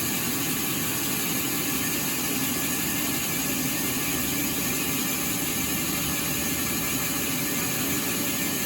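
Sawmill machinery running steadily: a constant mechanical hum with a hiss, unchanging throughout.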